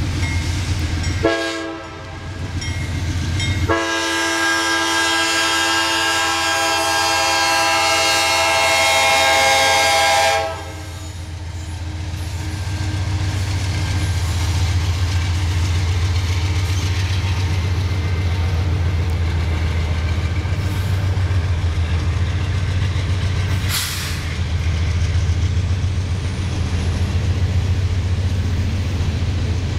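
CSX diesel locomotive horn giving a short blast about a second in, then a long, loud blast that ends about ten seconds in. The locomotives' diesel engines then rumble past, followed by the steady rolling rumble of empty coal hopper cars on the rails.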